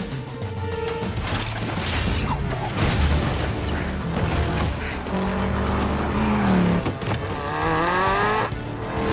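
Film action soundtrack: car engines revving and tyres on the road under a music score, with an engine note climbing in pitch late on.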